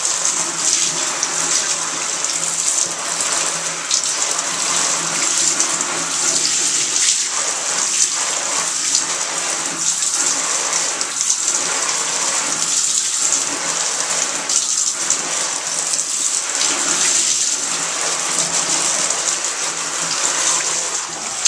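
Hand-held shower head spraying water onto a waterproof dry-bag backpack lying in a bathtub: a steady hiss of spray with water splashing off the coated fabric into the tub. The sound swells and dips about once a second as the spray is swept over the bag.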